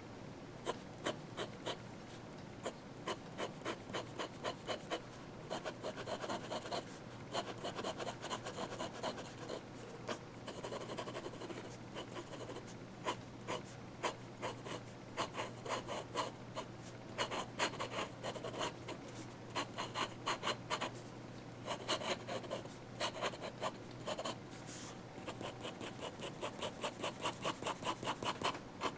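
Amazon Basics fountain pen nib scratching across sketchbook paper in quick hatching and scribbling strokes. The strokes come in rapid runs of several a second, with short pauses between runs. The nib is a bit scratchy.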